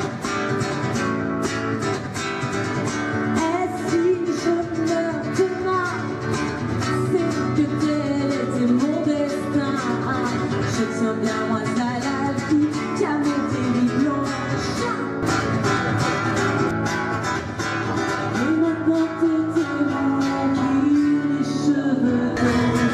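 A woman singing through a microphone over a strummed acoustic guitar, a live street performance.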